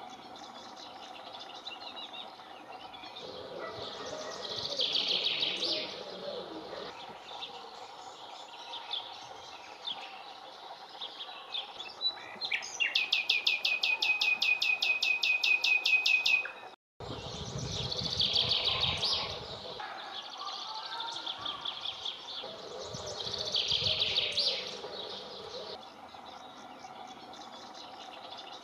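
Common nightingale singing: varied phrases, including a fast run of the same note repeated many times over about four seconds, and the sound drops out for an instant a little past the middle.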